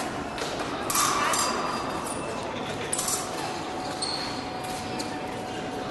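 Background chatter in a large hall, with a few short, sharp clinks, the loudest about a second in.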